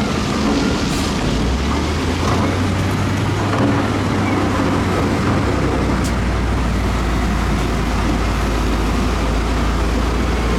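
Heavy diesel earthmoving machinery running steadily with a deep engine drone, and a single sharp click about six seconds in.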